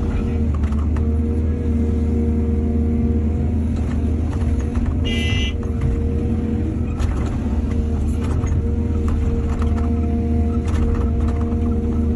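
Heavy diesel machinery engine, as on an excavator loading trucks, running steadily, with scattered clicks and knocks and a brief high-pitched squeal about five seconds in.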